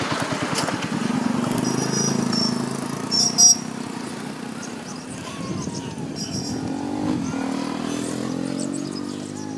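Motorcycle engine running close by with a steady low pulsing hum, rising in pitch about seven seconds in. Short high chirps come and go over it, and there is one sharp louder sound about three and a half seconds in.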